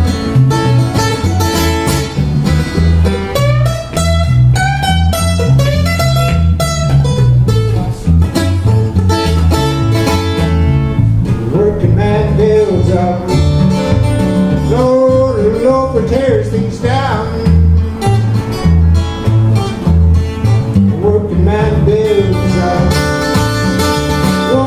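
Acoustic guitar played solo, a steady picked rhythm over a regular pulse of bass notes, as an instrumental break between sung verses.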